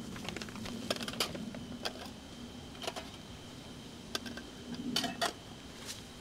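Scattered light clicks and clinks of dishes and utensils being handled, over a steady low hum.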